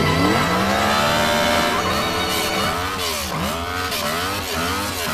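Sport-bike engine revving hard during a burnout, the rear tyre spinning on the pavement. The revs first climb slowly, then from about halfway rise and fall in quick blips, roughly two a second.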